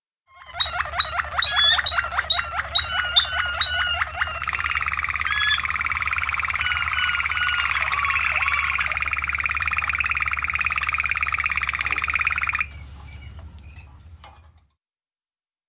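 Waterslager (Malinois) canary singing: a run of quick separate notes, about four a second, then a long continuous rolling trill that cuts off sharply near the end. A steady low hum runs underneath.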